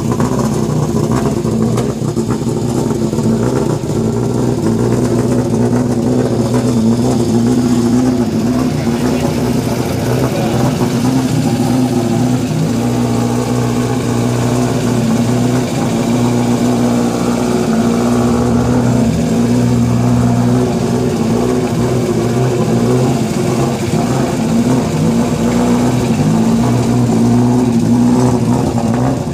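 1997 Subaru Impreza WRC's turbocharged flat-four engine running at low revs while the car is manoeuvred to park. The engine note stays steady, with small changes in pitch as the throttle is touched.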